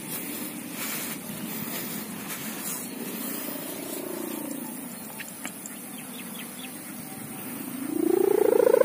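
Sendaren kite hummer on a large pegon kite droning in weak wind. A faint wavering hum comes about halfway through. About two-thirds of the way through, the hum swells into a louder tone that rises in pitch and holds steady near the end.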